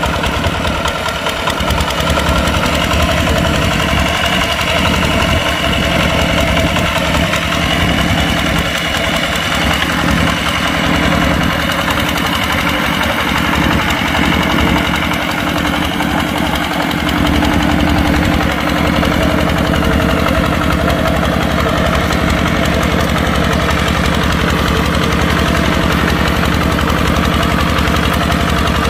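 Kubota tractor's diesel engine running steadily under load while plowing.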